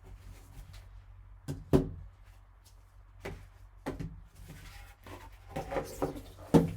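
Cardboard card box and its packaging being opened and handled: a few separate knocks and scrapes, the loudest a little under two seconds in.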